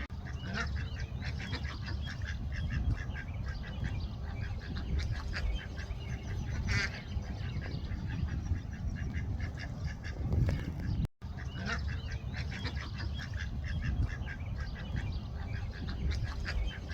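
Waterfowl calling over and over in quick, short notes, over a steady low rumble. The sound drops out for a moment about eleven seconds in.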